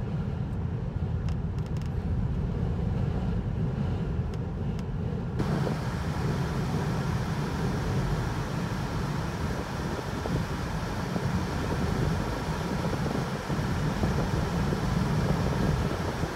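Vehicle driving, with a steady low road and engine rumble and a few light clicks in the first few seconds. About five seconds in, a hiss across all pitches comes in suddenly and stays.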